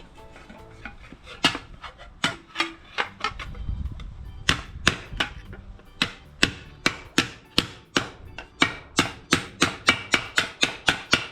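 Hammer blows on a steel sheet being shaped into a repair panel. The strikes are scattered at first, then settle into a fast, even run of about three to four a second in the second half.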